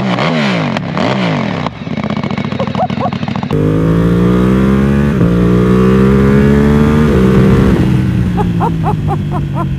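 A Ducati V-twin engine is blipped through quick rev rises and falls at a standstill. It then gives way to a Ducati Panigale V2 Bayliss with a full titanium Akrapovič exhaust accelerating on the road, its pitch climbing with two drops at upshifts about 5 and 7 seconds in.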